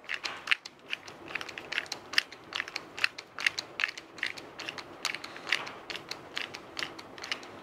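Small, uneven metal clicks and scrapes, several a second, as a hand tool turns and tightens the threaded end of a JP Silent Captured Spring buffer assembly.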